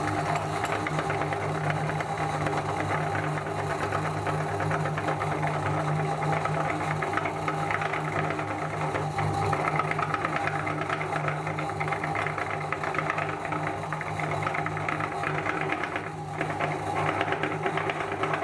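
Electric meat grinder running steadily: a constant motor hum with a fast mechanical rattle.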